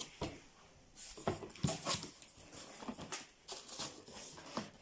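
Irregular rustling, crinkling and light knocks of plastic wrapping and cardboard packaging as a vacuum cleaner's parts are lifted out of their box.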